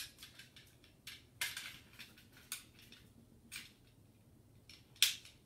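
Sharp metallic clicks and clacks from a Smith & Wesson Shield 9mm pistol being handled as its magazine is pushed into and released from the magazine well. There are about five, spaced a second or so apart, and the loudest comes near the end.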